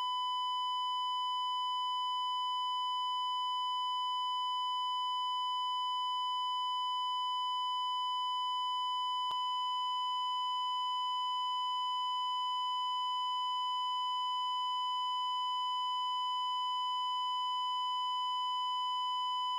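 Heart monitor flatline alarm: one continuous, unbroken beep tone, steady in pitch and level. It is the signal that no heartbeat is being detected.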